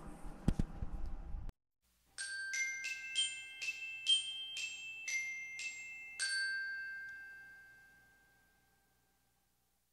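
A short glockenspiel jingle of about ten bright ringing notes, the last one held and slowly fading away. Before it, a second and a half of room sound with a couple of soft knocks, cut off abruptly.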